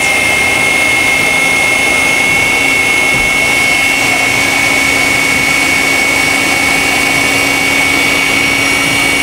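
Electric food processor running at full speed, pureeing sweet potato hummus: a loud, steady high motor whine with the churn of the thick purée beneath it.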